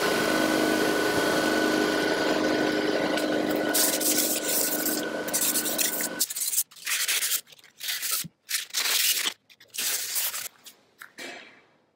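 A loud steady hiss with a hum for about six seconds that cuts off abruptly. Then a brass wire brush scrubs rust off a pitted steel knife blade in quick, uneven back-and-forth strokes.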